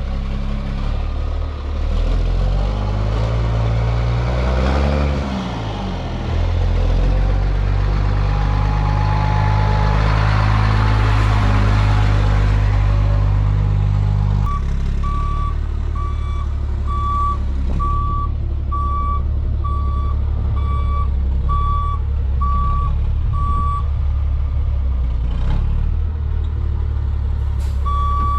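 Truck engine running, revving up and down briefly early on, then reversing with its backup alarm beeping steadily about once a second; the beeping pauses for a few seconds near the end and starts again.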